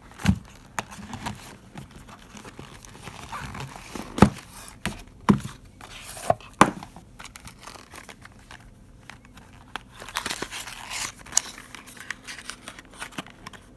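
Tissue paper crinkling and cardboard packaging being handled as a speaker is unpacked from its box. There are irregular crinkles with a few sharp knocks, and the crinkling is busier near the end.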